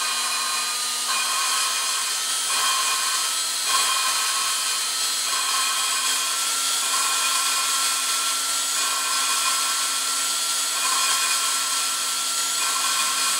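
Drill motor running steadily at slow speed, spinning an engine valve against its seat through a homemade hose coupling to lap it in with grinding compound; the note swells slightly about every second and a half.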